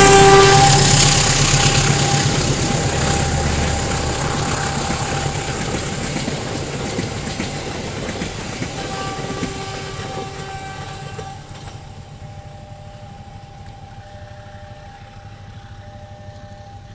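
KAI CC203 diesel-electric locomotive hauling a passenger train past: its horn cuts off about half a second in, then the running and wheel noise of the carriages rolling by fades steadily as the train moves away. Fainter steady tones come in around nine seconds in.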